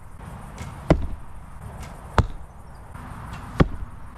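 Arrows shot from bows and striking targets: three sharp hits a little over a second apart, each coming just after a fainter click.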